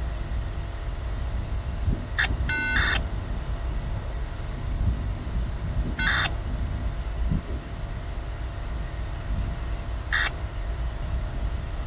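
A bird calling in short, harsh bursts about every four seconds, over a steady low rumble.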